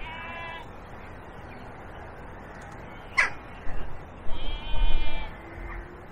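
Crow cawing twice, a short call at the start and a longer drawn-out one about four seconds in, with a single sharp click a little after three seconds.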